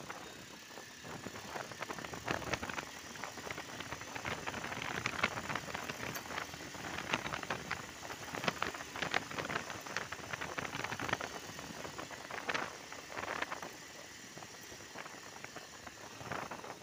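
Motorcycle riding along a rough, patched road: the bike runs steadily, with frequent short rattles and knocks from the bumps.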